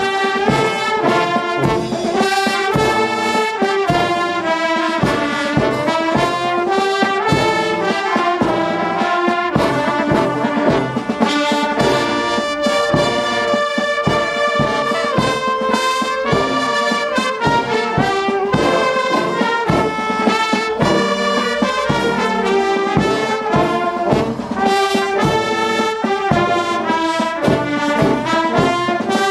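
Youth brass band playing a tune together: saxophones, trumpets and tubas carrying the melody and harmony over steady strokes of bass drum and cymbals.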